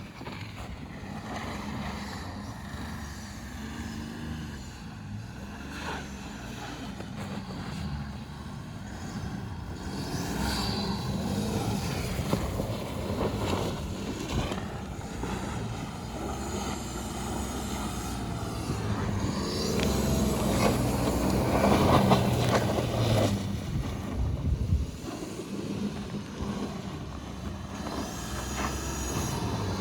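BMW 530d's 3.0-litre straight-six turbodiesel revving hard while the car spins donuts on snow, the engine note rising and falling in repeated surges, loudest a little over twenty seconds in.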